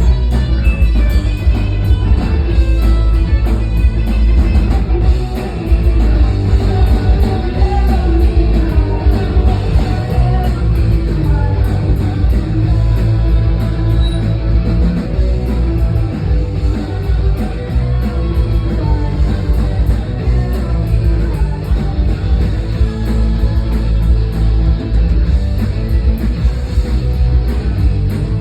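A rock band playing loud and without a break: electric guitar, bass and drums, in a heavy, punk-leaning style.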